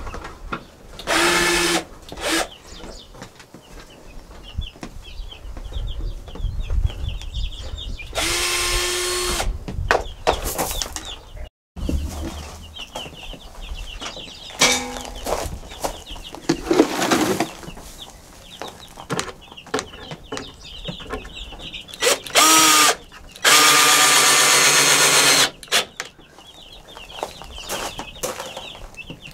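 Cordless drill driving screws into wood in four short runs of motor whine, the longest about two seconds near the end. Week-old meat chicks peep steadily between the runs.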